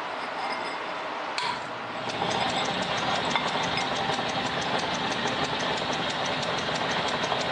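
Drill press running with a twist drill cutting into a metal plate: a steady mechanical running noise, joined from about two seconds in by a faint regular ticking, about five a second.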